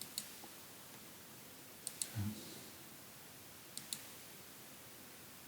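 Computer mouse clicking, faint: a single click, then two quick double clicks about two seconds apart, with a brief low sound just after the first double click.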